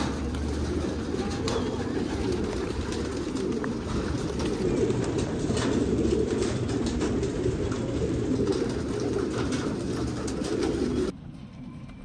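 A flock of domestic pigeons cooing together in a dense, continuous murmur, with scattered sharp clicks. The sound cuts off suddenly about eleven seconds in.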